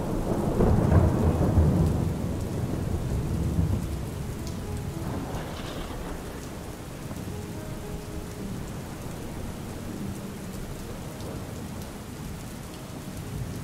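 Steady rainfall with a low rumble of thunder, loudest in the first few seconds and slowly dying away.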